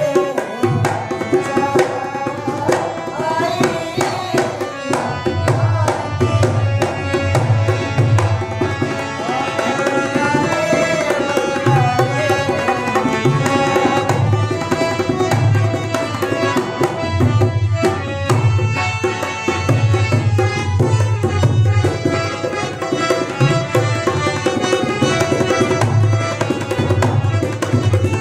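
Ragni folk music: a hand drum played in a steady, driving rhythm under a sustained, gliding melody.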